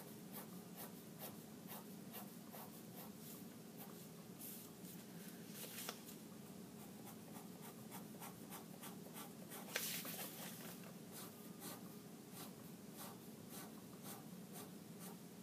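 Pen scratching on paper in quick, short strokes, drawing many lines in different directions, with a couple of louder scrapes partway through.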